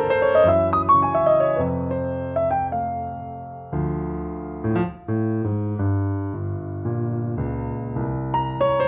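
Solo grand piano playing chords over low bass notes, growing softer around three seconds in, with a brief break about five seconds in before the chords resume.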